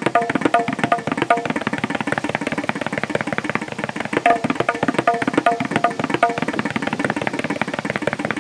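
Tabla played in a fast, dense rhythm of strokes, with ringing pitched strokes recurring through it.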